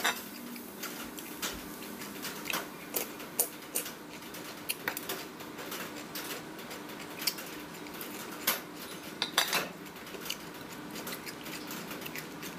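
Chopsticks clicking and tapping against bowls and plates during a meal: irregular short clicks, with a few louder ones about nine seconds in.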